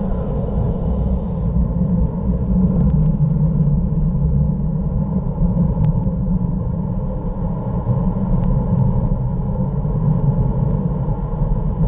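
Steady wind rumble buffeting the camera microphone on a fast downhill ride, with a few faint ticks.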